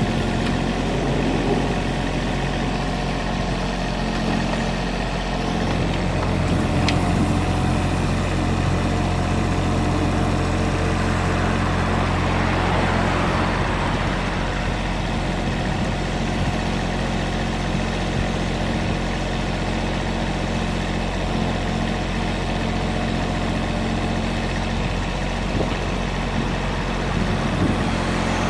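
Komatsu PC10-7 mini excavator's diesel engine running steadily, its low note growing stronger about five seconds in.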